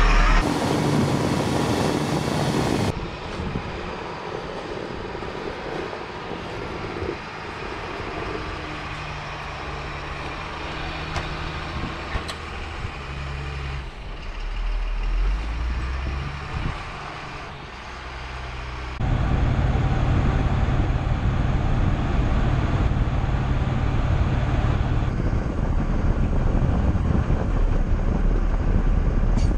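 Diesel engine of an M1078 military truck running, heard in a string of short clips: quieter in the middle with the engine note rising and falling, then louder and steady from about two-thirds in.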